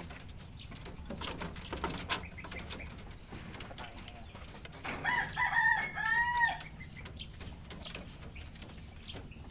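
A rooster crows once, about five seconds in, for a second and a half. Under it, light clicks and rustling of rabbits scuffling on a wire hutch floor with straw.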